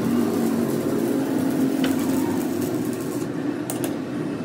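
Metal lathe running with a steady low hum. A couple of light metallic clicks come near the end.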